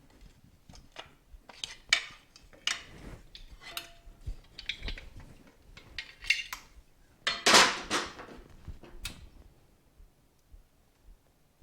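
Hand tools and loose metal parts clinking and clattering in irregular taps as a motorcycle is taken apart, loudest a little past halfway, then quiet near the end.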